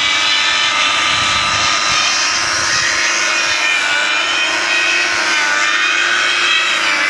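DNIPRO electric chainsaw-chain sharpener running at speed, its abrasive wheel grinding a saw-chain tooth with a loud, steady whine of several tones. The pitch dips briefly about five seconds in.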